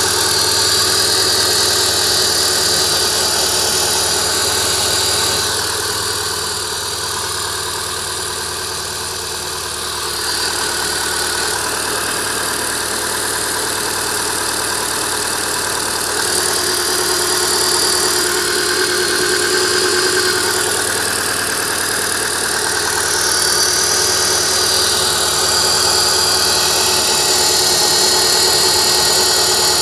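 Renault Clio 197's 2.0-litre four-cylinder engine running at idle, with high thin whining tones coming and going over it. This is the engine the owner says makes a strange noise in the engine bay and has a hesitant exhaust.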